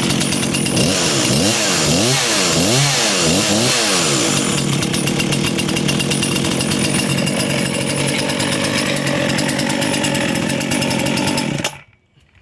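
Husqvarna 236 two-stroke chainsaw running loudly. It is revved up and down about four times in the first few seconds, then runs steadily until it cuts off suddenly near the end.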